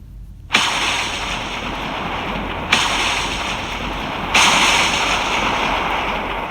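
Thunder sound effect: three sudden cracks of thunder, each running on into a long rumbling hiss, over a steady rushing noise like heavy rain.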